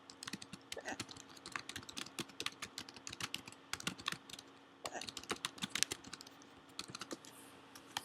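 Rapid, irregular clicking of keys being typed on a keyboard, with short pauses about three and a half and four and a half seconds in.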